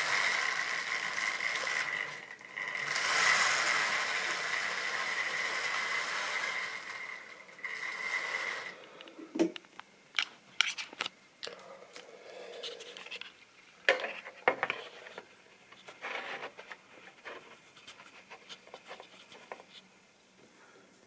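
Model railway train running along the track, a steady whir with a high whine, briefly dropping out about two seconds in and stopping about nine seconds in. Scattered clicks and light knocks follow.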